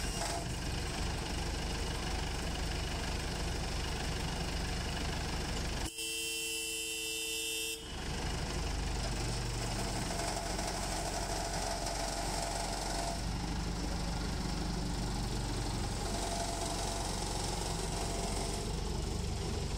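A museum toy train's engine running with a steady hum. Its horn sounds once for about two seconds, some six seconds in, and the train begins to move off near the end.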